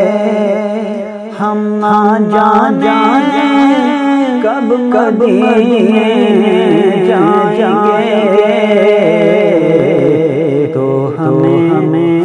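A man singing a naat, an Urdu devotional poem in praise of the Prophet, his voice gliding up and down in long ornamented phrases over a steady low drone.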